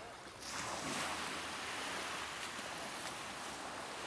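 Small surf breaking and washing up a sandy beach, a steady hiss that swells about half a second in.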